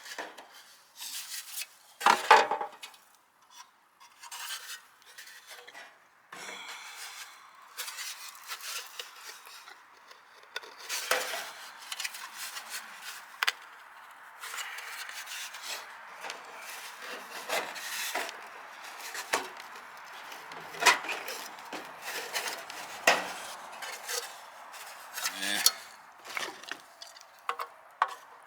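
Sheet-metal downspout pieces being handled and worked to fit: irregular clinks and knocks with scraping and rubbing between them, the loudest knock about two seconds in.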